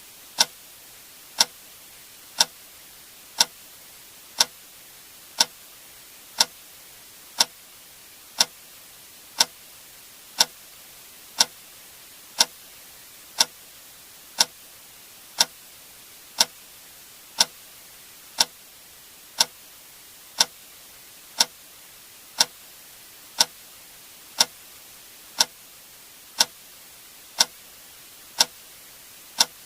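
A click sound effect repeating once a second, sharp and evenly timed like a metronome, over a faint steady hiss.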